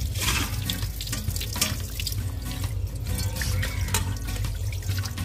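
Water running from a tap and splashing onto a stone floor as pieces of fish and a steel bowl are rinsed by hand under the stream.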